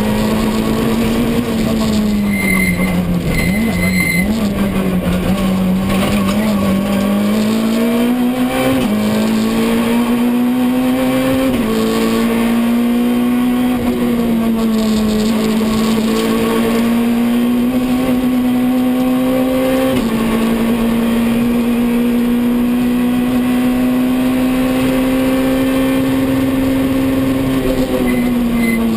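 Citroën C2 R2 rally car's 1.6-litre four-cylinder engine heard from inside the cockpit at speed, its note climbing and dipping with throttle and gear changes. Two short high beeps come about three seconds in.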